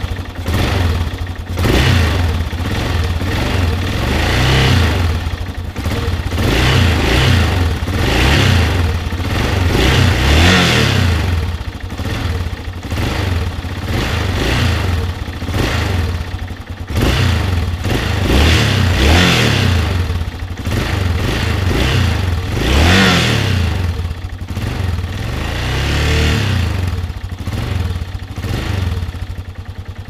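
Yamaha XT 600 Ténéré's single-cylinder four-stroke engine idling and being revved about ten times, each blip of the throttle rising and dropping back to idle.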